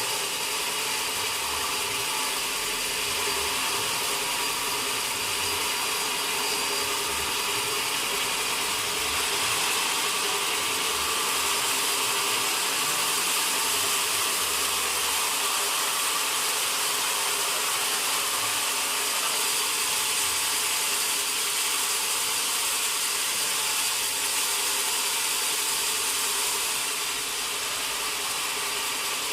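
Sawmill machinery running steadily: a saw's constant whine over a dense, even noise, dipping slightly near the end.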